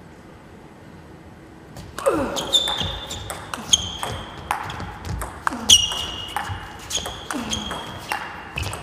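Table tennis rally: after a quiet first two seconds, the ball clicks off bats and table in a quick, uneven run of sharp ticks, several a second.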